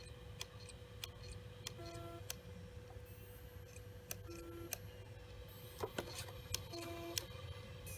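Western Digital Caviar Blue hard drive giving the 'click of death': sharp head clicks and a short buzzing tone repeat three times, about every two and a half seconds, over a steady faint hum. This repeating cycle is the sign of a failing drive.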